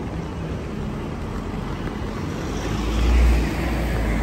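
Street traffic noise: a steady low rumble that swells to its loudest about three seconds in.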